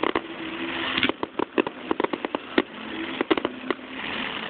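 Dense barrage of aerial fireworks: many sharp bangs in quick, irregular succession, with stretches of crackling hiss around one second in and again near the end.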